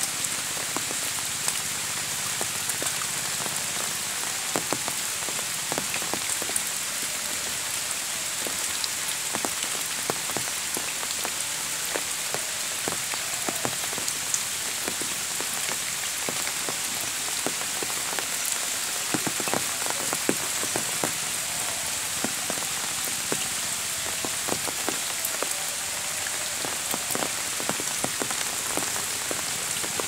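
Steady rain falling on puddled water, grass and leaves: a constant hiss with many close, sharp drop impacts scattered through it.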